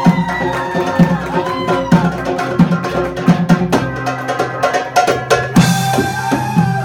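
Live Egyptian-style belly-dance music: a darbuka (goblet drum) beating a quick, even rhythm under electric bass and a violin playing a sliding melody. A bright shimmering hiss joins the music near the end.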